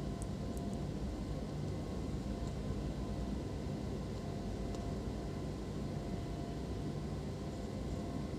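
Steady low background hum and hiss (room tone) with a few faint small ticks.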